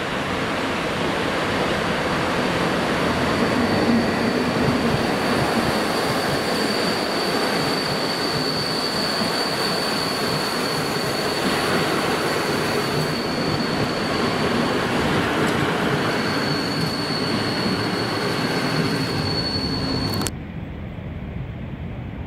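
Electric locomotive and passenger coaches passing close by: a steady loud rumble of wheels on rails with a thin high-pitched squeal held over most of it. Near the end the sound drops abruptly to a much quieter background.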